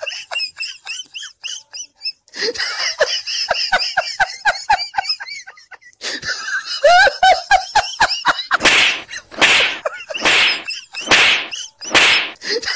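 Rapid high-pitched laughter in quick chains of short bursts, followed near the end by about five loud, harsh bursts roughly a second apart.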